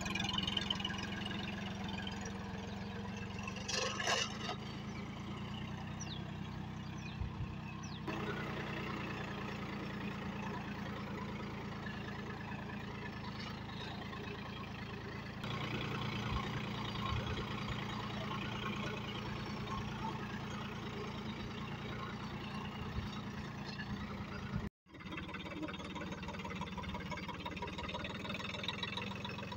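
John Deere 3028 EN mini tractor's three-cylinder diesel engine running steadily while pulling a rear-mounted box blade through tilled soil. There is a momentary break in the sound about 25 seconds in.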